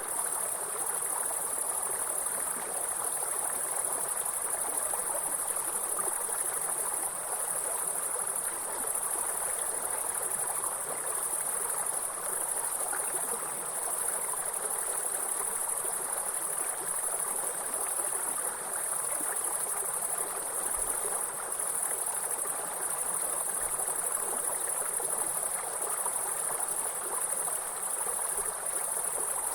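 Steady high-pitched chorus of insects, over the even rushing of flowing stream water.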